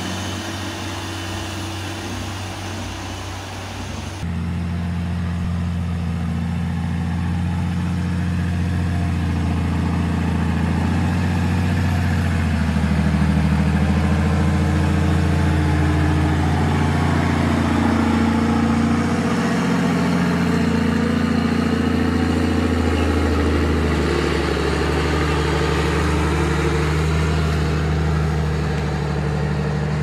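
Heavy logging truck's diesel engine running, its low drone slowly rising and falling in pitch, with a change in the sound about four seconds in.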